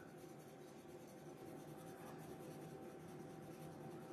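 Faint scratching of a brown CarbOthello pastel pencil stroking back and forth over sanded Pastelmat paper, laying down light layers of shading, over a faint steady background hum.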